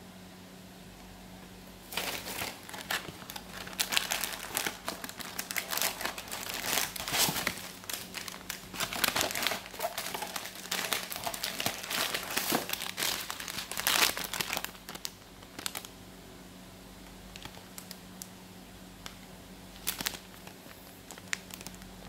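Plastic packaging crinkling and rustling as it is handled, starting about two seconds in and going on for about twelve seconds, then a few scattered crackles near the end. A faint steady low hum runs underneath.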